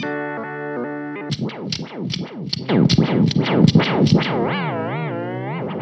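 Electric guitar chord through the Fideleater's short-delay vibrato. About a second in, the pitch starts swooping sharply up and down about four times a second. Near the end it turns into a slower, smooth sine-like warble as the modulation wave shape is switched.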